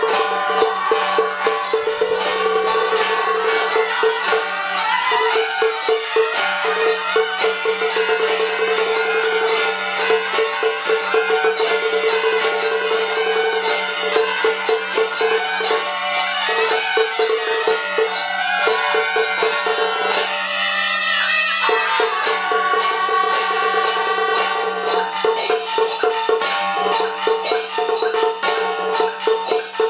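Music with fast, dense percussion strokes over a steady held note; the held note drops out briefly about two-thirds of the way through.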